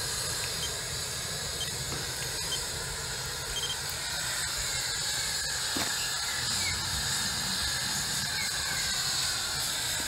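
Steady hiss of steam escaping from a homemade wood-fired rocket-stove steam boiler running hot and making a constant flow of steam.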